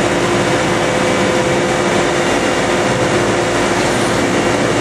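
125 hp hydraulic marine thruster running at power, its propeller churning the water into a white rooster tail: a loud, steady rush of machinery and churning water with a few held tones.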